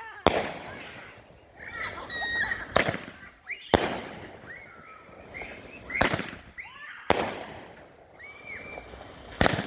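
Texas 6 Shooter consumer firework cake firing its ball shots: loud, sharp bangs every second or two, about six in all, each dying away between reports.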